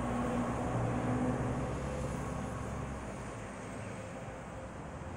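Low engine hum of passing motor traffic, steady at first and fading away about three seconds in.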